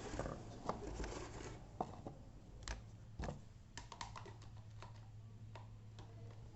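Irregular light clicks and taps of small fan parts being handled, over a steady low hum.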